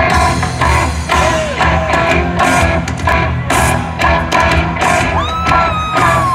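Live rock band, heard from within the audience: a steady drum beat about twice a second under bass and guitars. About five seconds in, a long note bends up and then slowly sags.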